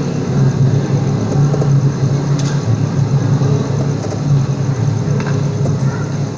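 Balinese gamelan ensemble playing a low, sustained passage: a steady, wavering hum of low gong and metallophone tones with no sharp strikes. It is played back through a computer's speaker and picked up by a phone.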